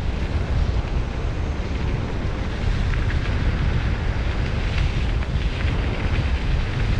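Wind buffeting the microphone: a loud, steady low rumble with a rushing hiss, and a few faint clicks in the middle.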